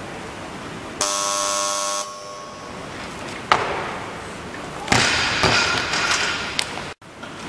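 An electronic buzzer sounds steadily for about a second, and a sharp knock follows. Then a loaded barbell with bumper plates crashes onto the lifting platform and bounces a few times before settling: a missed snatch at 72 kg, dropped from the overhead squat.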